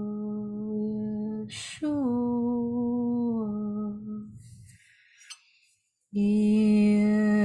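A woman's voice chanting long, sustained tones. A held note is broken by a quick breath and then a second note glides slightly down and fades out. After a short silence a new held tone begins about six seconds in.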